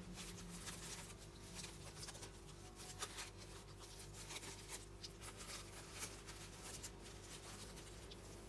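Faint rustling and scattered light clicks of a disposable plastic glove handling a wet T-shirt in a stainless steel bowl, over a low steady hum.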